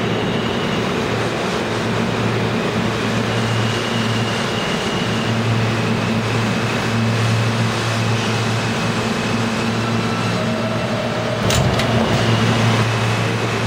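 New York City subway train running alongside an underground platform: a steady rumble of wheels on rail with a constant low motor hum and a faint high whine. A single sharp clank comes near the end.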